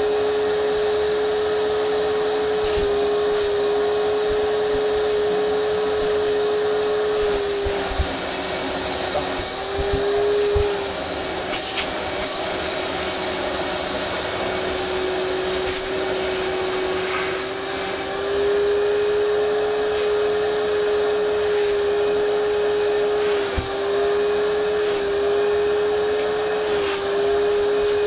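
Vacuum cleaner running steadily with a constant motor whine. The whine dips slightly in pitch and loudness for about ten seconds from around a third of the way in, then climbs back. A few light knocks come through.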